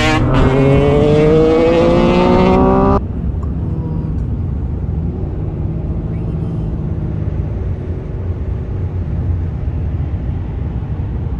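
Vehicle engine accelerating, its pitch rising steadily for about three seconds. After an abrupt cut, a lower, steady engine and road rumble.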